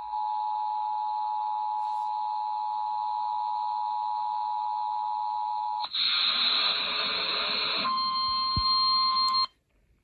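Emergency Alert System two-tone attention signal, a steady harsh dual-pitch tone held for about six seconds, then about two seconds of static hiss. It is followed by a single steady alert tone for about a second and a half that cuts off sharply.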